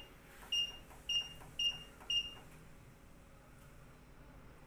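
Key beeps from the buttons of a digital school bell timer being pressed while a time is set: four short high beeps about half a second apart, then a pause.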